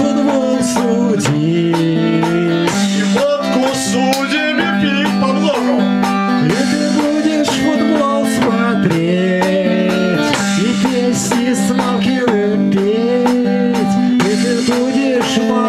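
Acoustic guitar playing an instrumental passage of a live acoustic rock song: steady strummed chords under a melody line that slides up and down in pitch.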